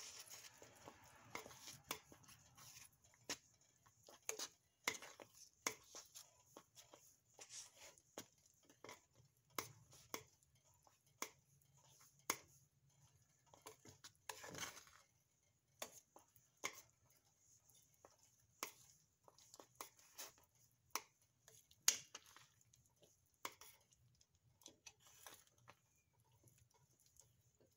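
Metal spoon stirring thick grits in a stainless steel saucepan: irregular clinks and taps of the spoon against the pot, roughly one or two a second, with one sharper clink about 22 seconds in. A faint steady low hum runs underneath.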